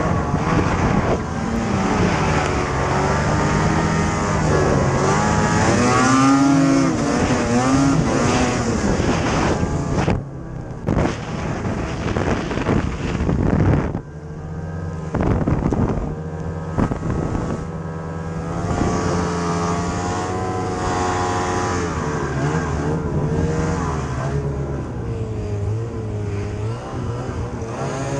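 Ski-Doo snowmobile engine being ridden, revving up and down with the throttle, its pitch rising and falling every few seconds. The revs drop off briefly about ten seconds in and again around fourteen seconds, then build again.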